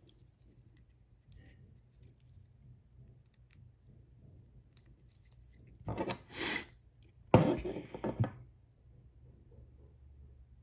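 Small spring pliers worked against the plastic landing-gear leg of a DJI Mavic Air 2 drone. Two short scrapes come about six seconds in, then a sharp click with more scraping after it. Faint handling noise fills the rest.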